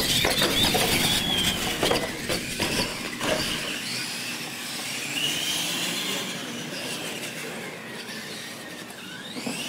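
Electric R/C monster trucks racing on concrete: the motors and gears whine, falling and rising in pitch as the trucks speed up and slow, over rough tyre and drivetrain noise. There are a few knocks in the first few seconds.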